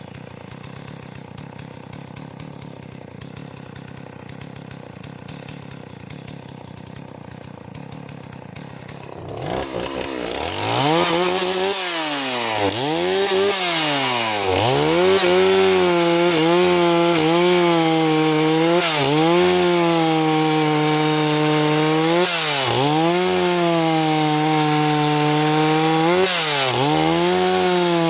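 Stihl 038 two-stroke chainsaw running quietly at first, then about ten seconds in it revs up and cuts into wood. Its pitch dips and recovers again and again as the chain bites under load, then holds steadier near the end.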